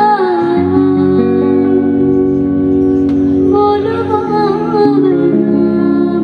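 A woman singing a Punjabi Sufi folk-fusion song live into a microphone, holding long notes with a slow waver in pitch, over a band with guitar playing sustained chords.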